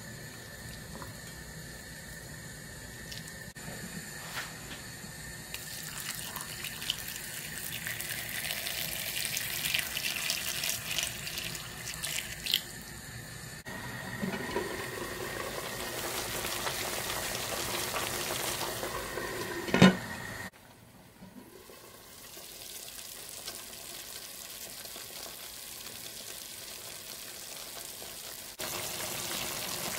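Pork and diced carrot and onion sizzling in a stainless steel pot, a steady hiss that grows louder in the middle and drops back after a cut. A single sharp knock about two-thirds through is the loudest sound.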